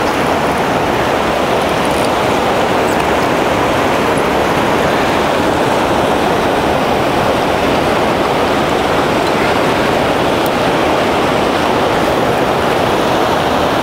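Fast mountain river running high over rapids close by: a steady, loud rush of whitewater.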